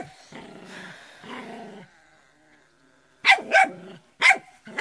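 Puppy growling low in two stretches, then giving three short, sharp barks about three seconds in.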